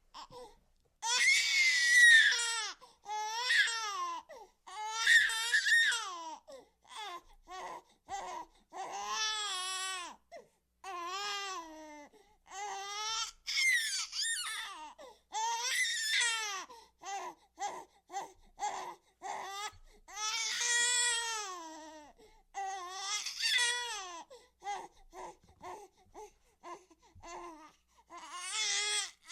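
A baby crying out of breath: loud wailing cries broken by short gasps, turning later into shorter, choppy sobs.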